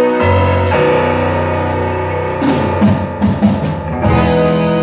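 Live rock band playing: sustained keyboard and guitar chords over bass, broken by a quick run of drum hits from about two and a half seconds in, which leads into a fresh chord near the end.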